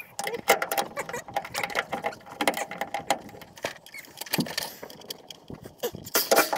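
Irregular clicks, taps and rattles of hand tools against metal fuel-line fittings on a fuel pump mount.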